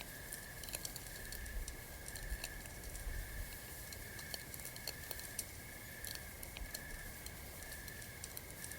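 Campfire crackling: irregular small pops and snaps, over a steady high pulsing tone.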